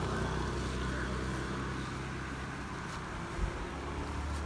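A steady low engine hum, as of a motor idling, over a background hiss, with a brief low thump about three and a half seconds in.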